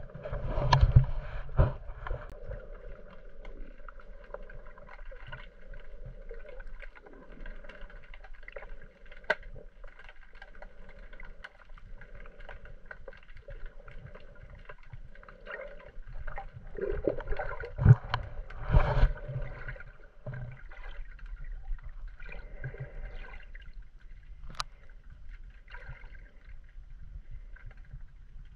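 Muffled underwater sound of a snorkeler moving through seawater: steady sloshing and gurgling. Louder splashes and thuds come about a second in and again around 17 to 19 seconds in.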